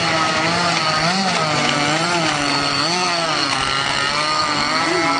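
Small combustion engines of radio-controlled model boats, an airboat and a jetski, running on the water with a buzzing, chainsaw-like note whose pitch keeps rising and falling unevenly.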